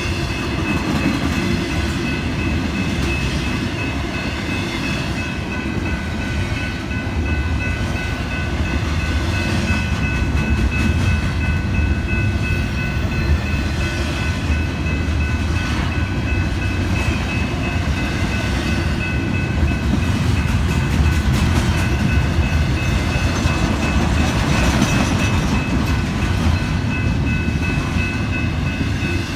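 Train rolling past at steady speed: a continuous low rumble of wheels on rails, with a thin steady high whine running through it.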